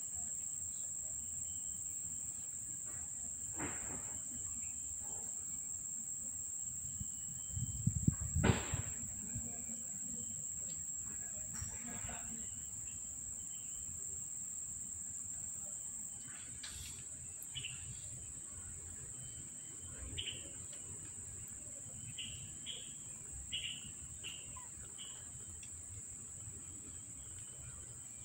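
Insects buzzing in a steady, high-pitched drone, with a brief rustling thump about eight seconds in and a handful of short high chirps in the second half.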